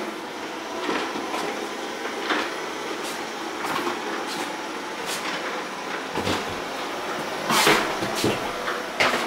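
Footsteps and small knocks on a tiled floor, spaced irregularly, with a louder clatter about three-quarters of the way through as a closet door is reached and opened.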